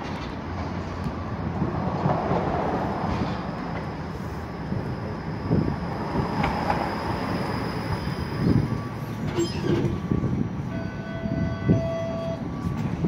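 A TTC Flexity Outlook low-floor streetcar rolls in along the rails and slows to a stop, a steady rumble of steel wheels and motors with a few knocks. Steady tones sound near the end as it comes to a halt.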